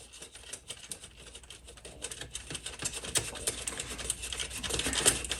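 Many small, quick clicks and ticks from hands working on a Rock-Ola 449 jukebox write-in read-out mechanism. They start sparse and grow busier and louder from about two seconds in.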